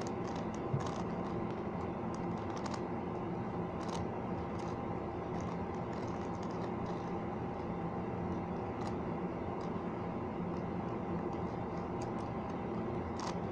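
Plastic clicks and clacks of a 5x5 Rubik's cube's layers being turned by hand, in scattered bursts over a steady background hum.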